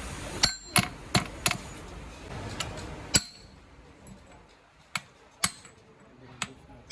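Metal tools and gearbox parts knocking and clinking: about ten sharp strikes at uneven gaps, some with a short ring.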